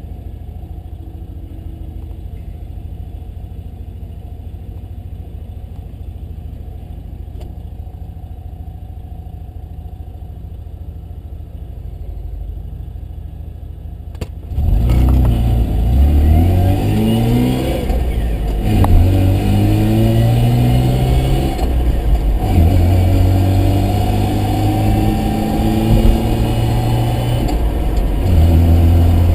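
Mazda RX-7's rotary engine idling steadily. About halfway through it picks up sharply and runs louder, its pitch climbing and dropping several times.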